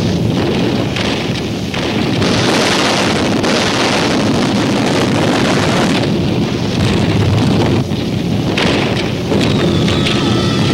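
Heavy bomber's engines and slipstream roaring in flight, shifting abruptly in tone every few seconds, with a thin high whine entering near the end.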